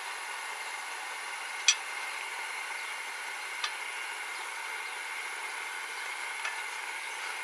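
A few light clicks of the foot pump's steel frame and pedal being handled, three in all with the first the loudest, over a steady hiss.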